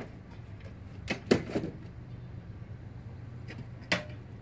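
A few short, sharp knocks and clicks of hard objects being handled, the loudest about a second and a half in and another near the end, over a steady low hum.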